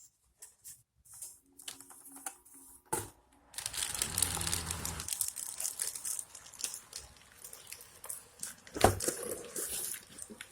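Cardboard box and plastic packaging being handled and opened, crinkling and rustling with a few knocks, one louder near the end.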